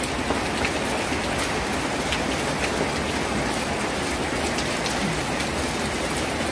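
Heavy rain falling steadily: an even hiss of rain, with scattered sharp ticks of nearby drops striking.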